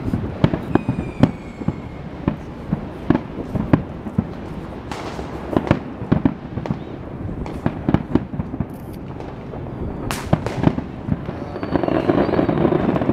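Fireworks display: aerial shells bursting in a rapid, irregular series of bangs. A brief whistling tone sounds about a second in, and the noise grows denser near the end.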